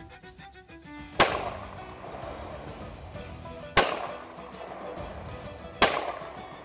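Three 9mm gunshots about two to two and a half seconds apart, each a sharp crack with a short echo fading after it, over quiet background music.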